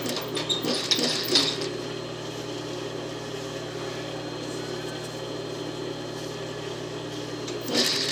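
Quilted fabric rustling under the presser foot of an industrial lockstitch sewing machine, with a few small clicks early on and a steady low hum underneath; near the end the machine starts to stitch.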